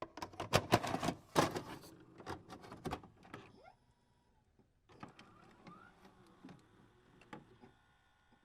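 A run of mechanical clicks and clunks for the first few seconds, then after a short pause fainter scattered clicks, with a faint steady hum near the end.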